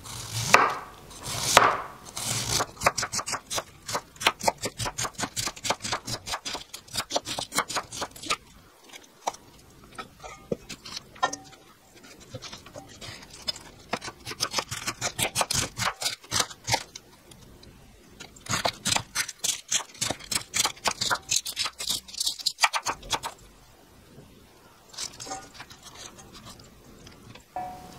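A santoku knife slicing cabbage on a wooden cutting board: quick runs of knife strokes cutting through the leaves and tapping the board, with short pauses between the runs.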